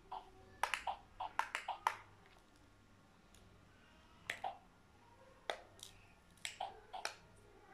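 Small sharp clicks and taps of hard plastic from a child handling a toy stethoscope, coming in short clusters with quiet spells between.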